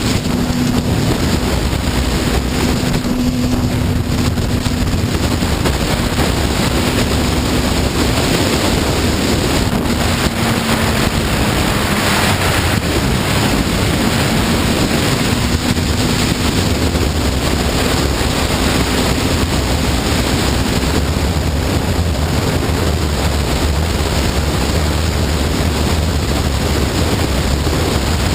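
Heavy wind rushing over the microphone while riding a Honda CBR954RR sport bike, with the inline-four engine's low drone underneath, its pitch wavering slightly as speed changes.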